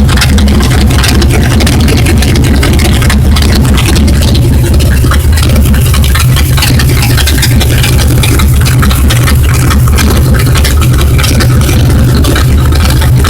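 1968 Ford Galaxie's V8 engine running steadily at idle, loud and even.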